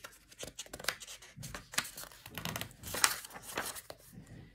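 Pages of a picture book being turned and handled: a run of crisp paper rustles and flicks, the loudest about three seconds in.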